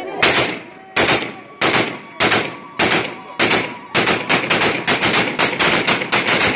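Celebratory gunfire from several rifles fired into the air. It starts as single shots about every half second, then turns into a rapid run of shots from about four seconds in.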